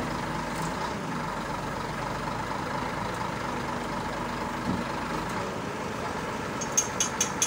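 Scania crane truck's diesel engine running steadily while its boom crane holds a load. Near the end comes a quick run of sharp metallic clicks.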